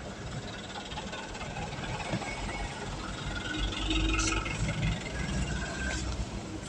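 Low, steady rumble of a vehicle engine idling, with one short sharp click about four seconds in.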